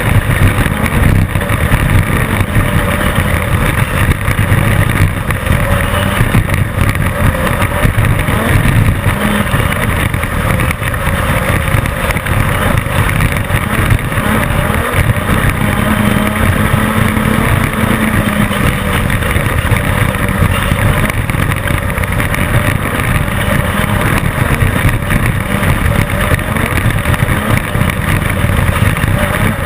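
Class 10 off-road race car running at race pace: loud, steady engine noise over a continuous low rumble and rattle.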